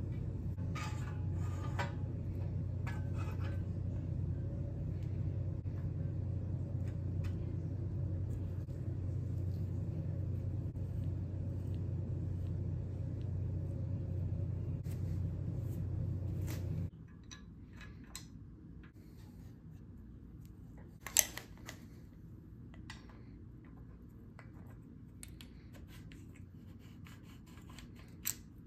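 Light clicks and taps of threaded-headset parts and a quill adapter being handled and fitted onto a bicycle fork's steerer tube, with one sharper click about two-thirds through. A steady low background rumble underlies the first half and stops abruptly.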